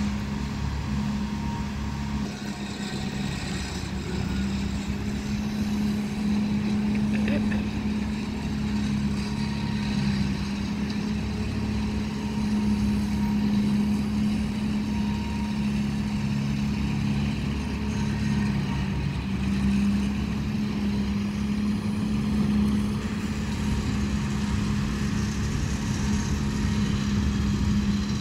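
1990 GMC TopKick leaf truck with its leaf vacuum running, a steady loud drone with a strong even hum, while leaves are raked into the intake hose.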